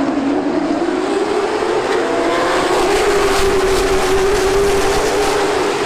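Late model stock car's V8 engine running hard, heard on board, rising in pitch over the first couple of seconds and then holding steady.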